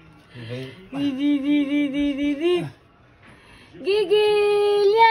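A baby singing two long held notes. The first wavers up and down; the second is higher and steadier, with a slight rise at each end.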